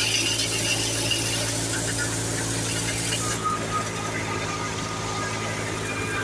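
Wheat thresher running steadily while threshing: a constant low mechanical hum with a dense hiss of grain and chaff being blown out.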